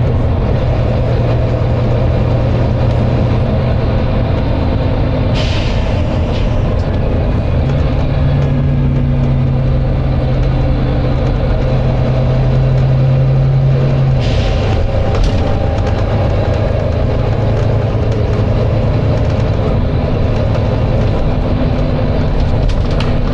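Volvo B9TL double-decker bus's diesel engine running under way. Its note climbs from about eight seconds in and drops back at about fourteen seconds. Short air hisses come about five seconds in and again twice around fourteen to fifteen seconds.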